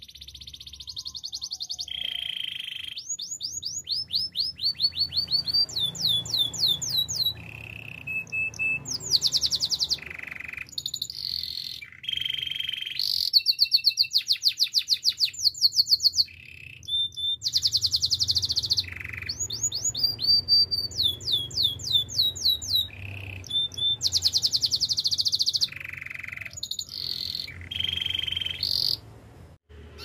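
White canary singing: a long song of rapid trills and rolls, each phrase a quick run of repeated notes, several of them sweeping down in pitch, with short gaps between phrases.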